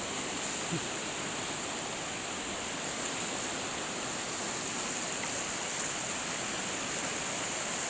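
The Teesta River swollen in flood, its water rushing steadily, with a constant high-pitched hiss above it.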